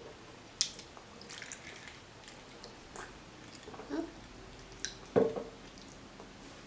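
Quiet, scattered chewing and wet mouth-smacking sounds of people eating, with a louder, brief mouth sound a little after five seconds.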